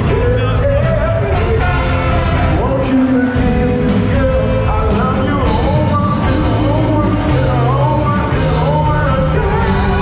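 Live band performing: several singers over a full backing band with saxophones, drums and keyboards, amplified through the hall's speakers and heard from within the audience.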